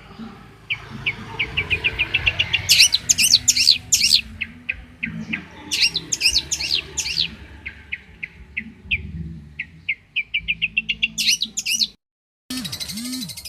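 A long-tailed shrike (cendet) sings fast runs of short, sharp chirps that build three times into bursts of rapid high sweeping notes. Near the end the song cuts off for a moment and a different, denser trill starts.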